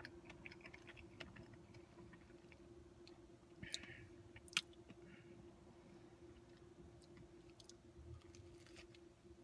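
Faint chewing of a cinnamon sugar donut, with small wet mouth clicks and two sharper clicks about four seconds in; another bite is taken near the end.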